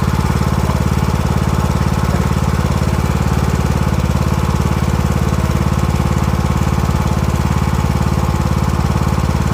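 Briggs & Stratton engine of a ride-on lawn mower running steadily at a constant speed, loud and even.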